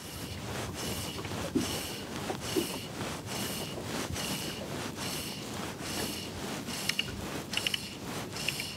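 Fly line stripped in by hand through the rod rings in steady pulls, a short rasping hiss with each pull, about three pulls every two seconds. A few light clicks come near the end.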